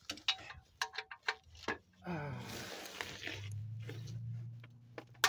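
Ratchet and socket clicking and knocking as they are fitted onto a rusty, never-lubricated exhaust flange nut, a run of irregular clicks over the first two seconds. From about two seconds in, a steady noise with a low hum beneath it.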